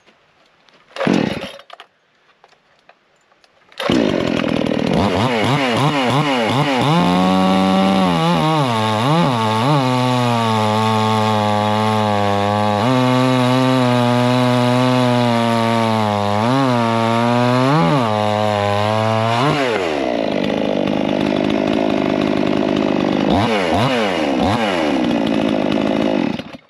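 Garwinner 62cc two-stroke chainsaw starting about four seconds in and revving, then cutting under heavy load through a hard beech log as it is dogged in and pushed. The engine pitch sags and recovers through the cut. It eases off around twenty seconds in, revs briefly again and cuts off near the end.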